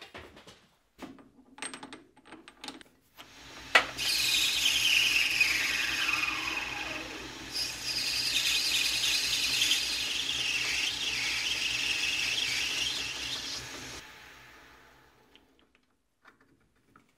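Metal lathe cutting the end of a metal tube with a carbide tool: after a few handling clicks and a sharp click, the machine runs with a low hum and a high cutting whine, one tone falling steadily in pitch for about four seconds, then the sound dies away.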